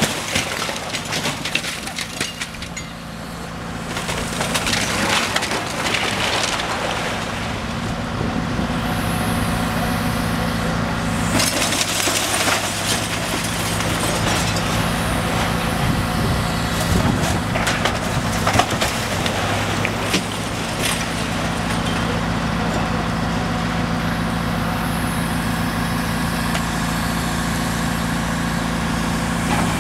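Long-reach demolition excavator's diesel engine running steadily while its grapple tears into a brick building, with repeated crashes and crunching of falling brick and debris. One crash about two-thirds of the way through is the loudest.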